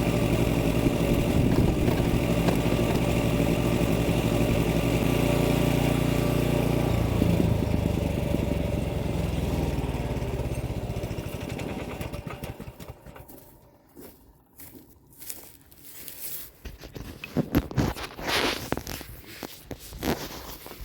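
A small engine running steadily, then dying down and stopping between about eight and twelve seconds in. After it stops, scattered light knocks and rustles.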